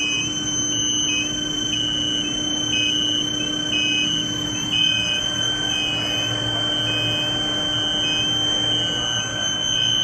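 Induction bar-heating furnace running at full power: a steady high-pitched electrical whine from the coils and power supply whose pitch dips briefly now and then, over a steady hum and machine noise.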